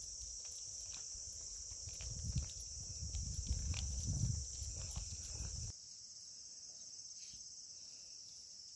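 Steady high-pitched insect chorus, crickets and similar, with a low rumble and a few light clicks on the microphone over the first half. The rumble stops abruptly about six seconds in and the insects carry on a little softer.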